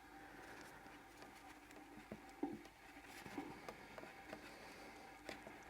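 Faint, scattered small clicks and scrapes of a hand tool working at a tight C-clip on a rocker-arm pin.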